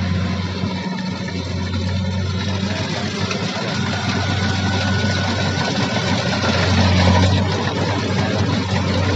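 Rice combine harvester's diesel engine running steadily at a constant pitch. It grows a little louder about seven seconds in, then settles back.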